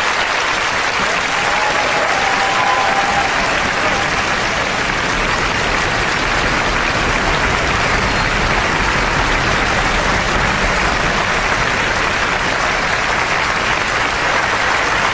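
Large concert audience applauding steadily and continuously after an operatic aria.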